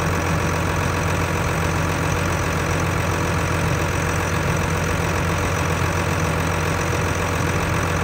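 A motor running steadily with a low, even hum.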